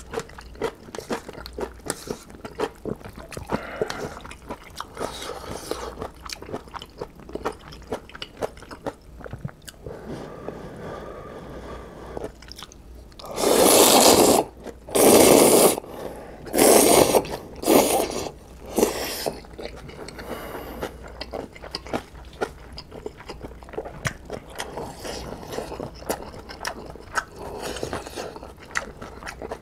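Person eating instant ramen noodles close to the microphone: chewing with many small wet clicks, then about halfway through five loud slurps of noodles in quick succession over about six seconds, the first the longest, before the chewing resumes.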